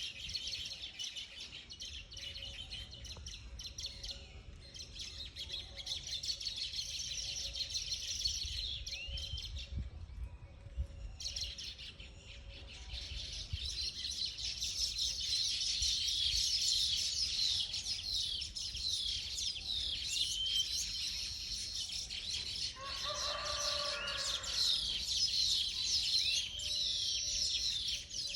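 A flock of small birds chirping densely and rapidly at their nests, the chirping dying away briefly about ten seconds in and then coming back fuller. About two-thirds of the way through, a lower drawn-out call from another animal sounds for about two seconds over the chirping.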